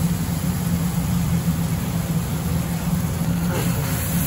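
A steady low mechanical hum with an even rushing noise over it, unchanging throughout.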